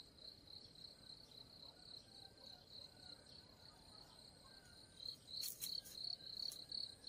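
An insect chirping steadily in a high pulsed tone, about three chirps a second, with a few brief rustles about five to six and a half seconds in.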